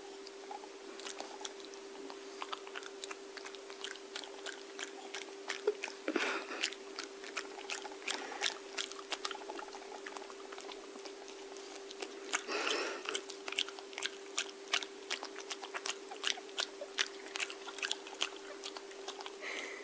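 Shih tzu chewing and gnawing on a small piece of corn: a long run of irregular crunching clicks.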